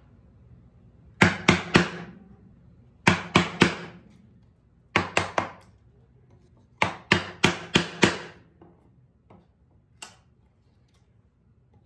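Wooden mallet striking a chisel to chop a mortise in a pine leg. The sharp knocks come in quick groups of three to five blows with short pauses between, then one last blow near the end.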